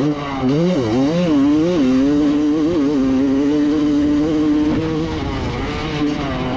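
Motocross bike engine under throttle: its pitch rises and falls quickly with throttle changes for about two seconds, then holds fairly steady at high revs before easing a little near the end.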